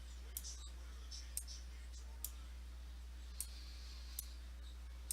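Scattered single clicks of a computer mouse, about one a second, over a steady low electrical hum.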